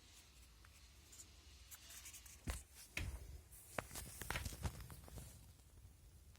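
Faint handling noises: a few sharp clicks and knocks with some rustling, bunched together in the middle, then quiet again.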